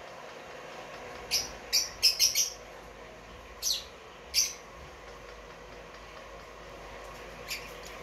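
Caged lovebirds giving short, high-pitched chirps: a couple of single calls, then a quick run of four about two seconds in, two more near the middle, and one fainter call near the end.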